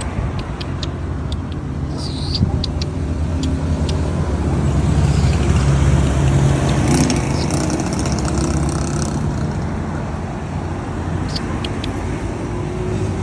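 A motor vehicle's engine running close by, a steady low rumble that grows louder a few seconds in and then eases off. Short high clicks are heard over it now and then.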